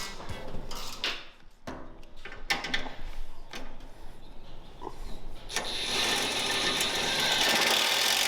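Ratchet-like clicking and small knocks of hand tools working on a vehicle. About five and a half seconds in, a loud, steady hiss starts and keeps going.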